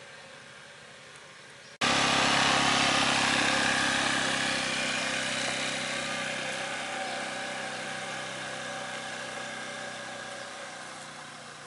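Small motor scooter engine running close by and pulling away, growing steadily fainter as it goes. It comes in suddenly about two seconds in, after a stretch of faint outdoor background.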